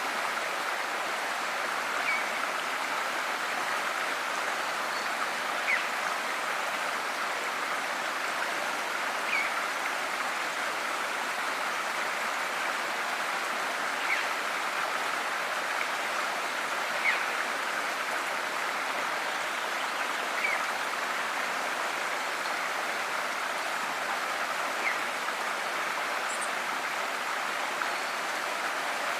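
River water flowing steadily, an even rushing hiss, with brief faint high-pitched plinks every few seconds.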